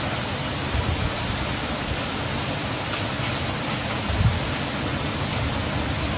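Steady hiss of heavy rain falling, with a couple of low bumps about one second and four seconds in.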